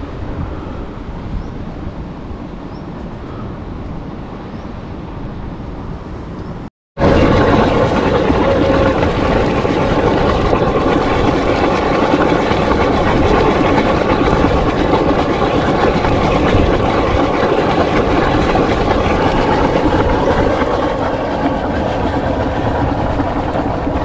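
Steam hissing and rushing steadily out of sulfur-crusted volcanic fumaroles. After a brief dropout about seven seconds in, it comes back louder and closer as steam jets from a vent among the rocks.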